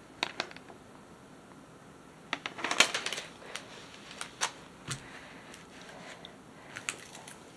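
Clear plastic cover film on a diamond painting canvas crinkling and crackling as the canvas is handled and laid flat, in irregular bursts, thickest about three seconds in, with scattered crackles after.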